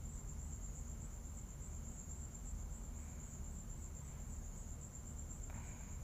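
Background room tone: a steady high-pitched trill over a low hum, with no other clear event.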